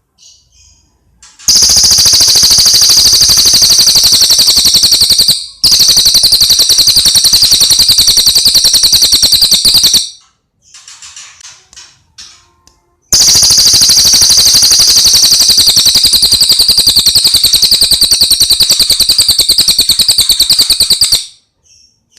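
Cililin bird singing: two long, very loud trills of rapidly repeated high notes, each lasting about eight seconds, with quieter short chirping phrases between them. This is masteran song, played to caged songbirds for them to copy.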